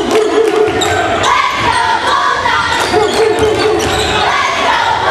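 Basketball bouncing on a hardwood gym floor during a game, among the noise of the crowd in the stands, with two long held shouts from spectators.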